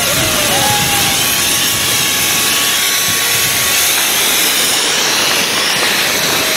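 Loud, steady rushing of water churned up by a large ship's steel hull sliding past and into the river during its launch.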